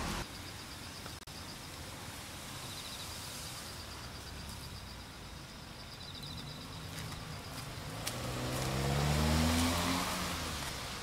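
An insect trills in fast pulsed runs for several seconds. Near the end a car drives past, and its engine note rises as it comes close.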